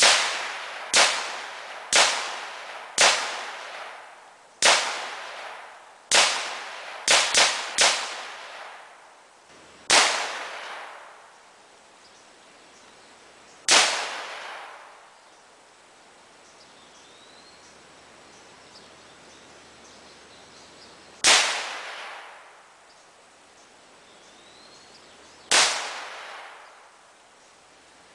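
Gunshots fired at hanging bottle targets, thirteen in all, each sharp and echoing away over a second or two. Four come about a second apart, then a quick run of three, then single shots at longer and longer gaps.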